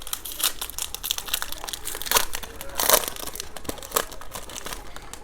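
A trading card pack's wrapper being torn open and crinkled by hand, in crackling rustles with a few sharper rips about two, three and four seconds in.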